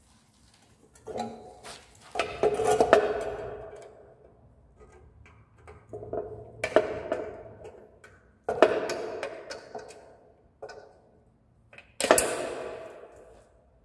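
Metal hand tools knocking against metal scooter kickstarter parts while a circlip is being worked off. About five sharp clanks, each ringing on and dying away over a second or two.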